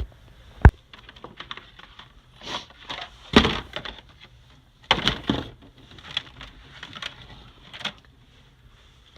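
Plastic food-storage containers and lids being handled and sorted into a cardboard box: a sharp knock about a second in, then scattered clatters and rustles.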